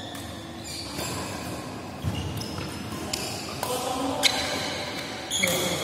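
Badminton rackets striking a shuttlecock in a doubles rally: a run of sharp hits, roughly every half second to a second, ringing in a large hall, with short high squeaks from shoes on the court.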